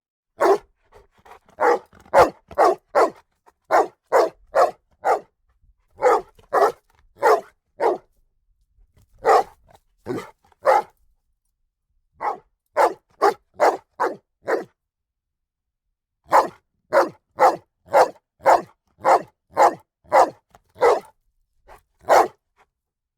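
A dog barking in runs of short, sharp barks, about two to three a second, broken by brief pauses.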